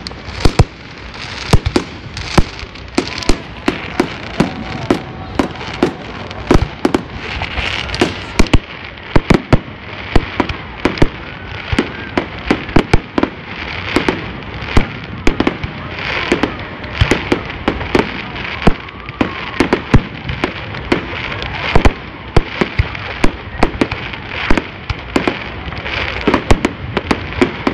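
Fireworks display: dozens of loud bangs from bursting shells in quick succession, over continuous crackling.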